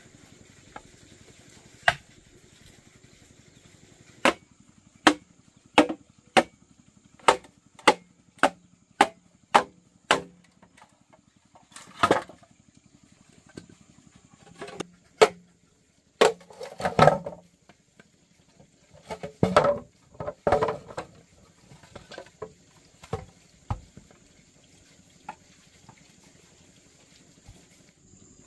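Repeated chopping strikes on wood, about two a second for several seconds, then slower and irregular, with a few longer rustling, scraping passages between them. A steady high insect drone runs underneath.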